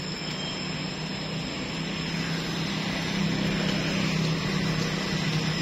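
Steady engine drone with a low hum, growing louder over the last few seconds.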